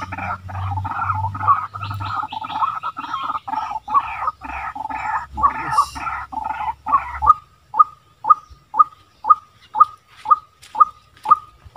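White-breasted waterhen calls: rapid, croaking call notes repeated over and over, with a low steady hum beneath them. About seven seconds in the hum stops and the calls settle into an even series of single notes, about two a second.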